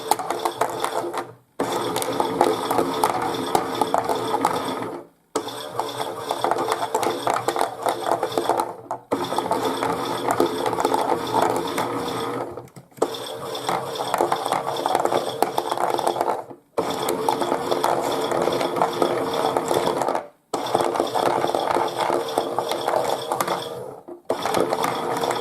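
Chad Valley toy washing machine's small motor and gears running the drum on its main wash tumble, a steady whirring rattle. It stops for a moment about every four seconds, then starts again.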